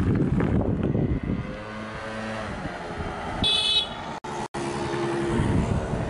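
Wind buffeting the microphone, then the engine of a passing motor vehicle humming steadily. A brief high-pitched sound comes just past the middle, and two short dropouts in the audio follow it.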